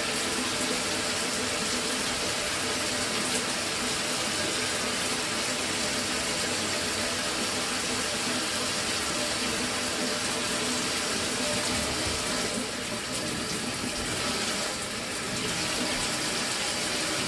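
Water running from a Mira electric shower, a steady rushing spray, on test after its solenoid valve was replaced. The level drops slightly for a couple of seconds a little past two-thirds of the way through.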